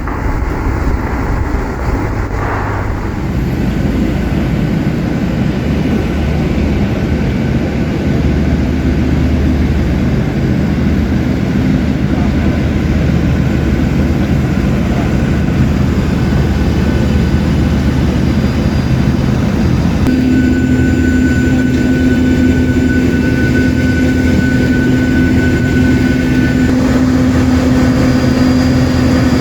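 Loud, steady aircraft noise: an even rumble, with a steady whine joining about twenty seconds in.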